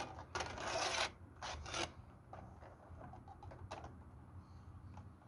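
Plastic roof panels of a model locomotive shed being handled and set onto the frame: a rustling scrape about half a second in, a shorter one near two seconds, then scattered small clicks and taps.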